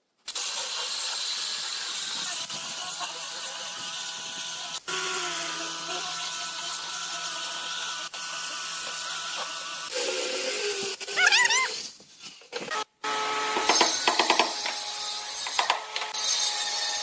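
Handheld angle grinder with a sanding disc running on a wooden tabletop: a steady motor whine over the rasp of the pad on the wood, stopping about ten seconds in. Later comes a different stretch of workshop noise with a few sharp knocks.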